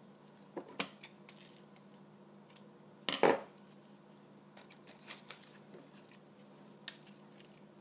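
Scissors cutting through craft material, with a loud double snip about three seconds in and a few lighter snips and handling rustles around it.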